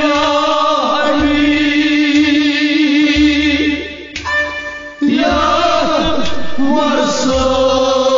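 Music of a Kashmiri devotional kalaam: a chanted, sung melody over a steady drone, with low thumps recurring every second or two. The sound dips briefly about four seconds in, then comes back in full.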